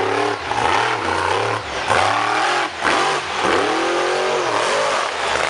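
Monster truck's engine revving hard under load on a steep dirt climb, its pitch rising and falling several times as the throttle is worked on and off.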